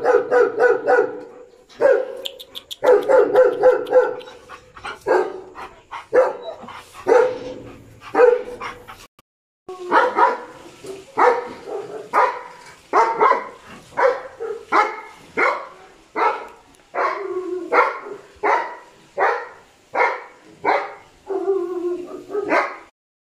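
Dogs barking repeatedly. There is a fast run of barks at first, a brief break about nine seconds in, then steady barks at about one and a half a second.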